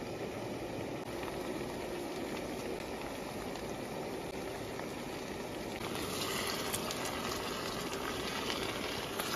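Napa cabbage and cured pork sizzling in a hot wok as they are stir-fried. The sizzle brightens about six seconds in as the stirring picks up, with a few light clicks of chopsticks against the pan.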